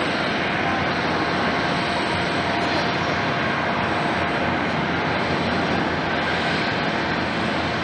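Airbus A350-900 jet airliner's Rolls-Royce Trent XWB turbofan engines running with a steady rush of jet noise and a faint whine over it.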